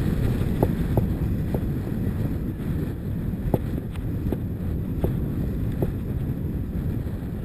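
Wind rushing over the camera microphone during a ride down a bumpy dirt track, with scattered sharp knocks and rattles from the bumps.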